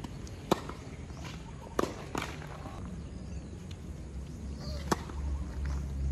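Tennis ball hit by rackets and bouncing on a hard court: a sharp pop about half a second in, two more close together near two seconds, and another about five seconds in. A low rumble builds near the end.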